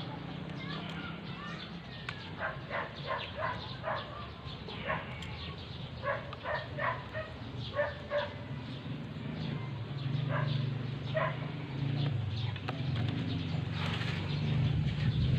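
Birds calling in short repeated notes, with a steady low hum underneath that grows stronger near the end.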